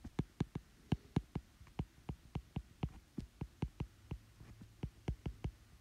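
Stylus tapping and ticking on an iPad's glass screen during handwriting: a quick, uneven run of light clicks, about five a second, as each letter is written.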